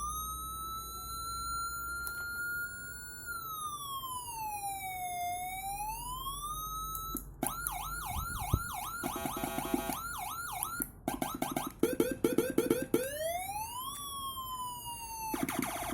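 CJB200W electronic siren stepping through its tones. It opens with a slow wail that holds high, falls and rises again. About seven seconds in it switches to fast repeating yelp sweeps, then rapid choppy pulses, then a rising and slowly falling glide, and changes again near the end.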